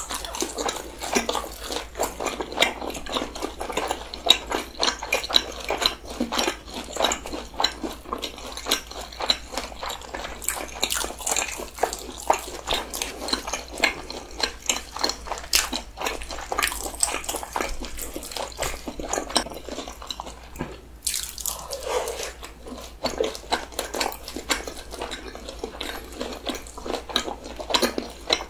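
Close-miked wet chewing and lip-smacking of two people eating soft seasoned fried snacks with dipping sauce: a dense stream of small sticky clicks and smacks, easing briefly a little after two-thirds of the way through.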